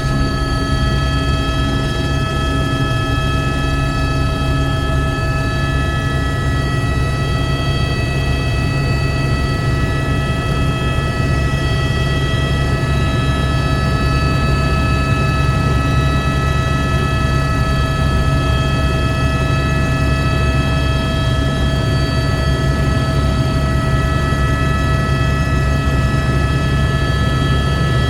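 Helicopter's engine and rotor running steadily: a loud low rumble under a constant high turbine whine.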